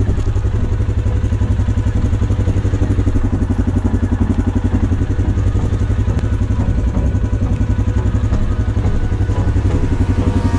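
Suzuki KingQuad 750 ATV's single-cylinder engine idling steadily, with an even, rapid throb.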